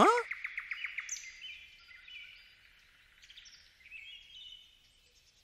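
Small birds chirping: a fast run of about eight high chirps a second that fades out within the first two seconds, then a few scattered faint chirps. A short rising glide sounds at the very start.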